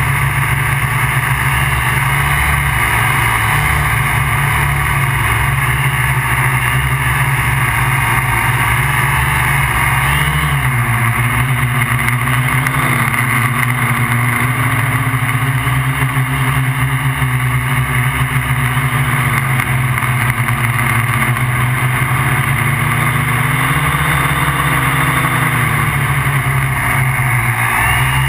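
MikroKopter Quad XL quadcopter's electric motors and propellers buzzing steadily in flight, heard close up from the onboard camera. The motor pitch shifts a little up and down about ten seconds in and again near the end as it manoeuvres.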